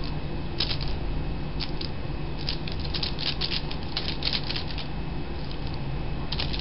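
Paintbrush mixing and dabbing paint: quick, irregular, scratchy strokes, several a second, over a steady low hum.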